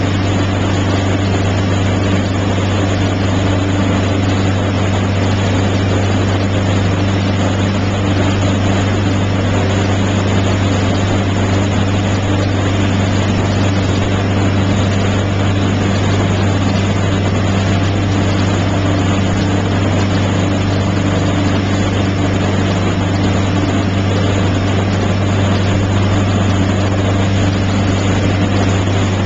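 Motorboat engine running steadily under way, a constant low drone, mixed with the rushing of the churning wake behind the boat.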